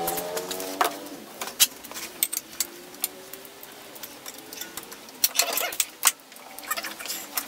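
Scattered sharp clicks, knocks and clinks of hand tools and parts being handled in a car's engine bay, after a wavering whine that fades out in the first second.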